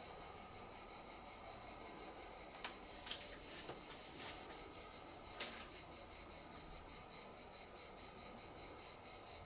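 Faint steady high-pitched whine with a rapid flutter, with a few light clicks in the middle.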